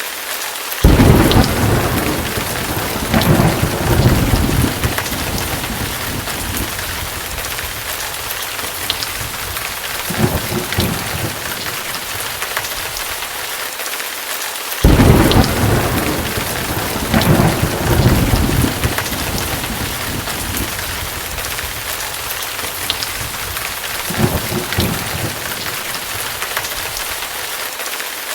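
Rain and thunder sound effect: steady heavy rain hiss with thunder cracking suddenly about a second in and again about halfway, each followed by rolling rumbles. The same pattern repeats about every 14 seconds, a looped recording.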